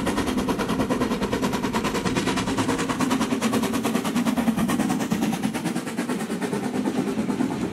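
Harz narrow-gauge steam locomotive passing close while working hard, with a rapid, even chuffing over the steady rumble of the running train.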